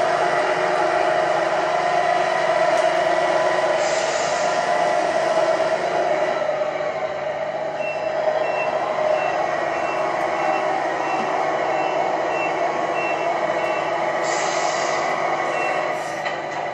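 Electronic sound unit of a Tamiya 1/14 Mercedes-Benz Actros RC truck playing a steady diesel engine note, with an air-brake hiss about four seconds in and again near the end. A run of evenly spaced reversing beeps, just under two a second, sounds through the middle stretch.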